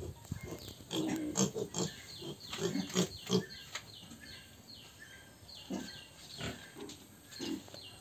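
Piglets grunting in a pen, a run of short grunts in the first few seconds and scattered grunts after. Repeated short high chirps sound behind them.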